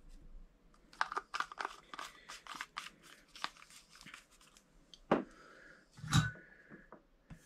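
Desoldering and resoldering the cracked solder joint of a video jack on a circuit board: a run of small crackles, then two sharp snaps about a second apart, the second with a brief ring.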